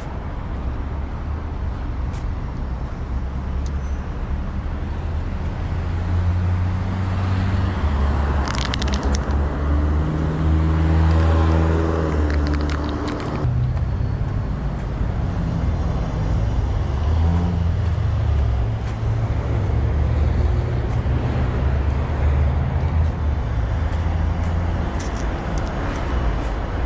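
Street traffic: cars and other road vehicles passing, with a constant low rumble. One vehicle's engine stands out about a third of the way in and stops abruptly about halfway.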